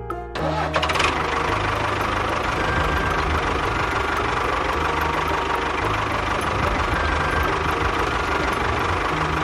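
Small engine of a miniature DIY construction vehicle running steadily with a rattly, knocking note. It comes in just after the start and holds even until near the end.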